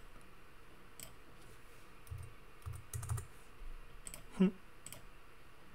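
Faint computer keyboard typing: a handful of scattered keystrokes, a cluster of heavier taps around the middle, and a brief vocal murmur about four and a half seconds in.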